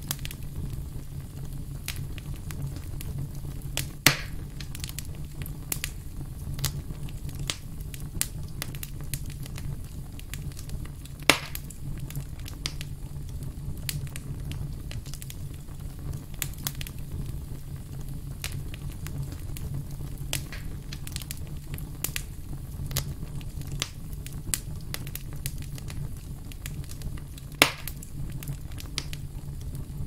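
Campfire of split logs burning: frequent small crackles over a steady low rumble, with three loud pops about four, eleven and twenty-eight seconds in.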